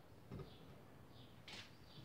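Near silence, with faint high chirps repeating about every three-quarters of a second. A soft low thump comes about a third of a second in, and a brief hiss near the end.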